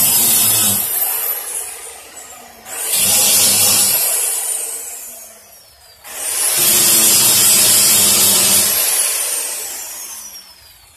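Angle grinder grinding down a metal grill, run in three bursts of a few seconds each. Each time the trigger is released, its high whine slides down as the disc spins down.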